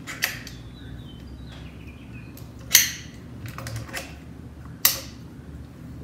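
Sharp metallic clicks and taps as a compression tester's hose and brass fitting are handled and threaded into a spark plug hole on a Continental flathead four-cylinder engine: three distinct clicks, the loudest a little under halfway through, over a steady low shop hum.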